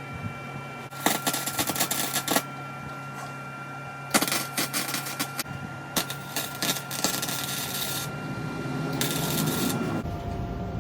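Wire-feed welder tack-welding: several short bursts of crackling, spitting arc, each about a second long, over a steady hum.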